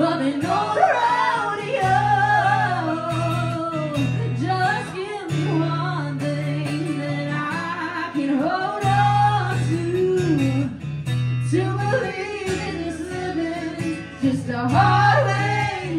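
A woman singing over a strummed acoustic guitar, performed live.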